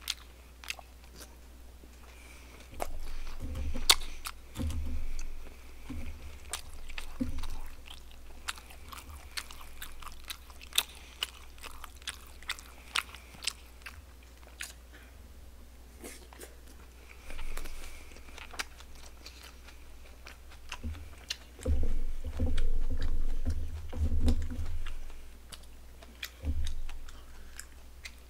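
Close-miked chewing of saucy barbecued pork: wet mouth clicks and smacks throughout, with heavier chewing bursts a few seconds in and again about two-thirds of the way through.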